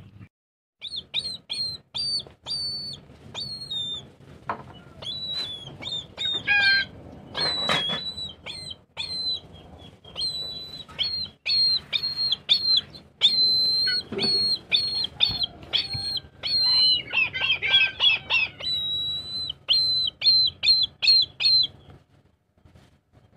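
Pet eagle calling: a long run of short, high-pitched whistled chirps, about two a second, with a quicker trill near the end.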